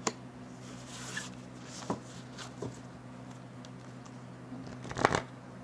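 Oracle cards handled on a table: a few soft clicks and slides as the spread of new cards is worked, then a short burst of sharper card clicks near the end as the deck is handled.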